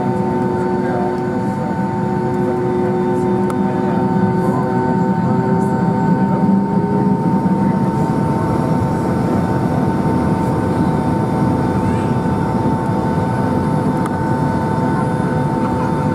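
Boeing 757-200 cabin noise while taxiing: the jet engines' steady whine at low thrust over a constant rumble. A lower tone rises slightly and fades out about seven seconds in.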